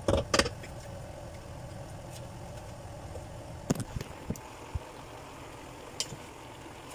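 A wooden spoon knocks against a frying pan of stir-fried vegetables, with two loud clatters right at the start and a few smaller knocks and clicks later. A steady low hum runs underneath.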